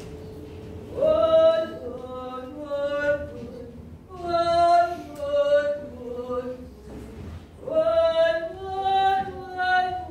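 A woman singing unaccompanied in three long phrases of held notes, starting about a second in, about four seconds in and near the end.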